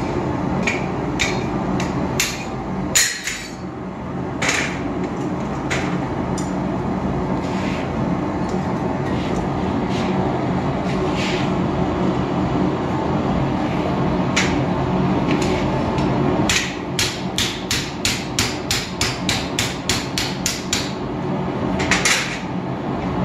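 Hand hammer striking hot steel on an anvil, the first blows driving a drift through the workpiece: scattered blows in the first few seconds, then a quick run of about a dozen blows about two-thirds of the way through. Under it the steady hum of the running forge.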